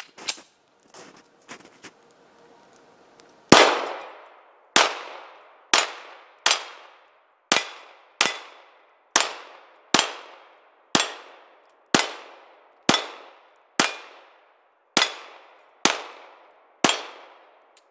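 Grand Power X-Calibur 9mm pistol firing fifteen shots, about one a second, emptying its 15-round magazine. Each is a sharp report with a short fading tail. A few faint clicks come just before the first shot.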